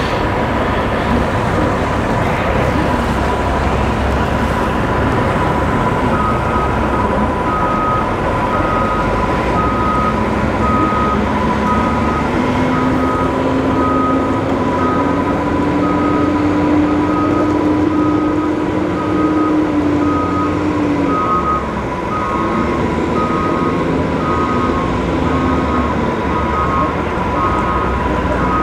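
A vehicle's reversing alarm beeps at an even pace from about six seconds in, over the steady noise of engines running. A deeper engine hum rises slowly in pitch from about ten seconds in and drops away about twenty-one seconds in.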